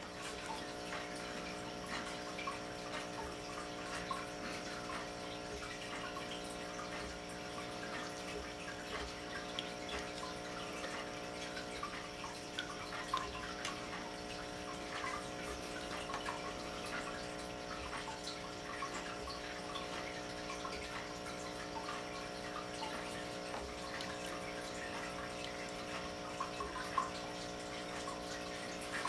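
Steady trickle of water over a constant low hum, with a couple of faint clicks.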